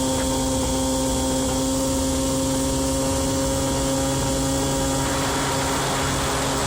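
Aprilia Ditech two-stroke scooter engine running at steady revs on a test ride, a steady drone that holds one pitch. It has fresh crankshaft bearings that, by the owner's account, already show crank play again.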